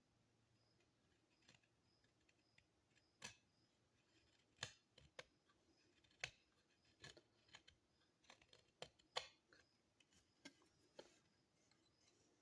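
A Lucky Dog 'Bulldog' pocket knife cutting wood: faint, irregular clicks and short scraping strokes as the blade bites in and slices through.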